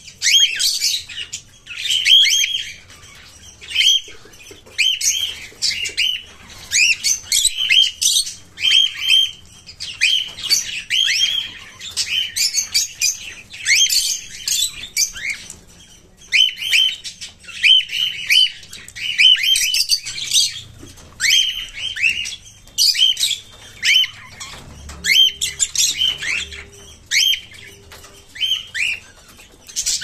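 Caged cockatiels chirping: short, downward-sliding calls in quick runs with brief pauses, and now and then a flutter of wings.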